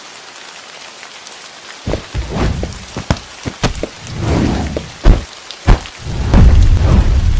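Rain falling, with sharp thunder cracks in the second half and heavy rolling rumble toward the end.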